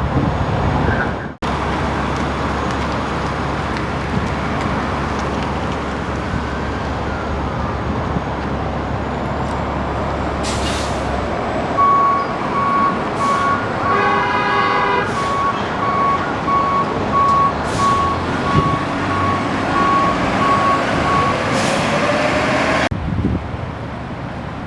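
Fire engine's diesel engine running, with short air-brake hisses. About halfway through a steady beeping starts and repeats evenly for several seconds, with a brief horn toot in the middle of it.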